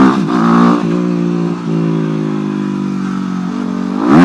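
Motorcycle engine running under way at a steady speed, with a loud surge of shifting pitch at the very start and another near the end.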